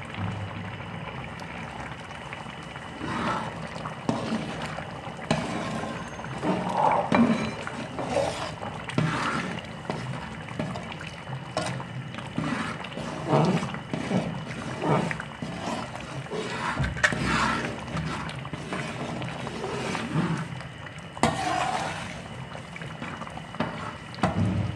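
Thick carrot halwa bubbling and plopping in a large steel pot while a metal ladle stirs it and scrapes the pan, in irregular bursts. The milk is cooked down almost dry, with ghee just stirred in.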